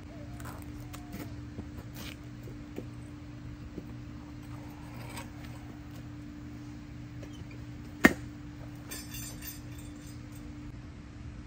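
A steady low hum with faint scattered ticks, and one sharp metallic clank about eight seconds in.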